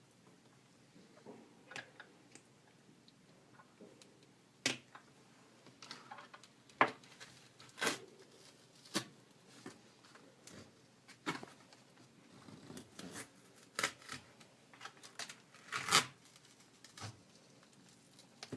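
Irregular clicks, scrapes and short tearing sounds of the adhesive cover strip over an HP Pavilion DV6 laptop's speaker panel being pried up with a hobby knife and peeled off.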